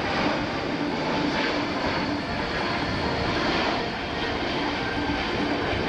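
Boeing C-17 Globemaster III's four turbofan jet engines running as the airlifter flies its demonstration: a steady, loud jet noise with a low hum under it.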